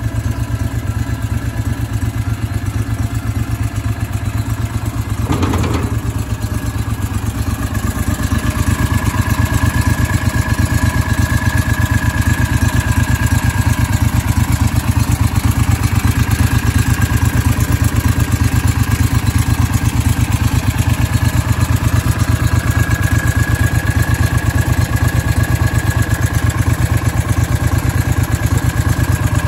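The Gator's Briggs & Stratton Vanguard engine idling steadily, with a brief knock about five seconds in. It is a little louder from about eight seconds in, with a faint high whine over the idle.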